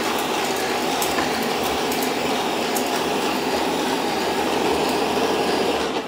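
Shark AV2501S robot vacuum running on a hardwood floor: a steady whir of its suction motor and brushes, with a few faint ticks.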